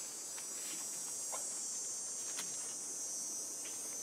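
Steady high-pitched chirring of a chorus of insects in grassland, with a few faint short clicks.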